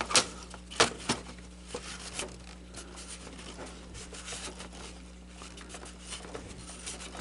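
A cloth rag rubbing and wiping the plastic display filter of a Sony SL-S600 Betamax VCR, in short irregular scratchy strokes, lifting off dust and dirt. Three sharp clicks come in about the first second.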